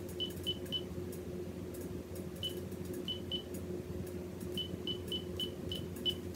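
Cordless phone handset keypad beeping as a number is keyed in: about a dozen short, high beeps at uneven spacing, some in quick runs and with a pause of about a second and a half partway through, over a steady low hum.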